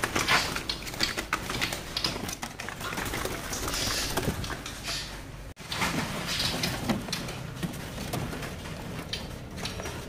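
Caged songbirds hopping and fluttering in their cages: scattered soft rustles, wing flaps and taps on perches and bars, with faint bird calls in the background.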